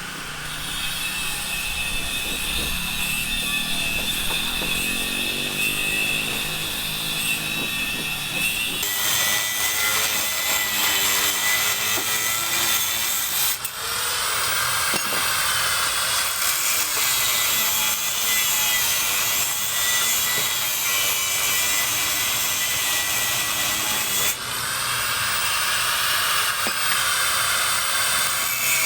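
A power tool cutting steadily, its motor whine shifting in pitch as it bears into the material. The sound changes abruptly about nine, fourteen and twenty-four seconds in.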